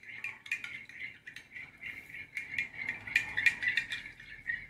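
Metal spoon stirring salt into water in a small glass cup, clinking quickly and irregularly against the glass with a light ringing tone as the salt dissolves.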